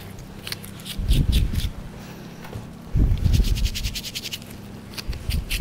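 Small brush scrubbing morel mushrooms dry, in several short runs of rapid scratchy strokes. Dull low thuds sound twice, about a second in and about three seconds in.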